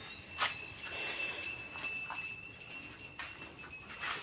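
Cattle bells jingling irregularly as the cows move and feed, with a steady high-pitched tone underneath.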